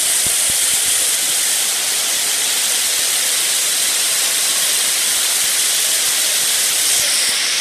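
Large indoor arena crowd applauding and cheering, a steady dense wash of noise with no let-up.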